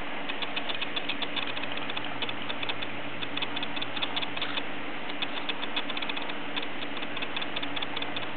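Runs of rapid, fine clicking that come and go: a cockatiel grinding its beak, a sign of a relaxed, contented bird while its head is being scratched.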